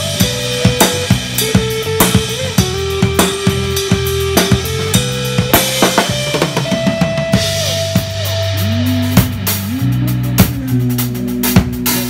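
Acoustic drum kit played with sticks in a steady song groove, bass drum, snare and cymbal hits, over sustained bass and guitar notes from the rest of the band.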